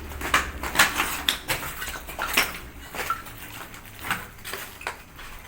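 Irregular sharp clicks and clattering knocks, a dozen or so scattered through a few seconds, like hard bits being stepped on or knocked about.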